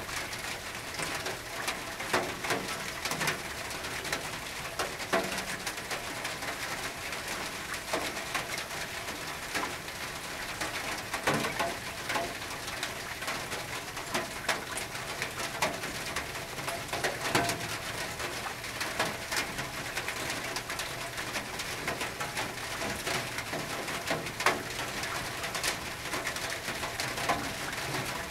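Rain on a tin roof: a steady hiss of rain with many sharp, irregular drop hits on the metal. A bird coos in the background.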